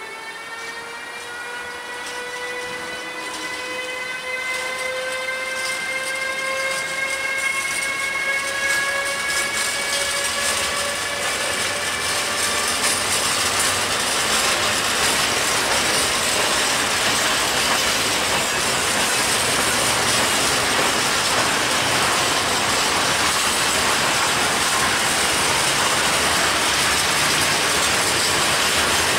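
Siemens Vectron electric locomotive pulling away from a standstill, its traction whine a stack of tones rising slowly in pitch over the first dozen seconds. The whine fades under the rolling noise of a long rake of open freight wagons passing close by, which grows steadily louder and then holds.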